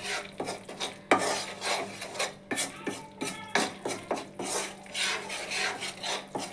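Flat spatula scraping and stirring wheat flour roasting in ghee in a metal kadhai, the first stage of kada prasad: repeated rasping strokes, about two a second.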